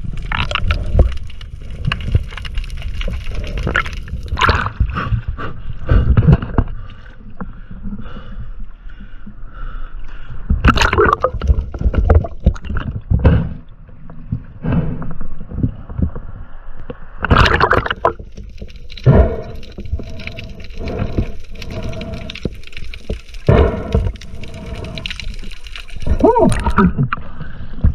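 Seawater sloshing, splashing and gurgling against an action camera's waterproof housing, in irregular rushes, both underwater and at the surface.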